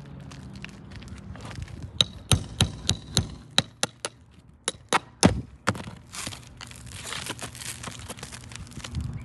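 Hand tools working at an asphalt roof shingle to get its roofing nails out: a quick run of about a dozen sharp taps and cracks, then a few seconds of scraping.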